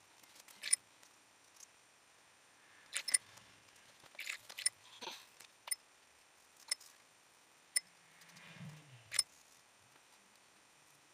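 Light, irregular clicks and taps of watercolor painting gear being handled, about nine in all, with a couple of soft brief swishes between them.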